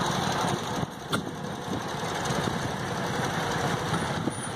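Antique tractor engines running slowly at low revs, a steady uneven chugging, with one sharp click about a second in.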